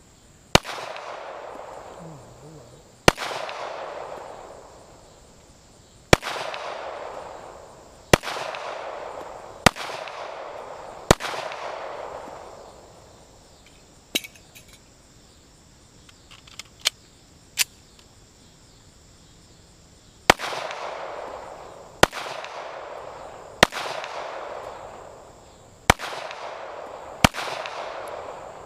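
Gunshots on a shooting range, about a dozen single shots spaced one to three seconds apart, each followed by an echo that rolls away over a second or two. Around the middle there is a pause of several seconds with only a few fainter cracks, then the shooting resumes.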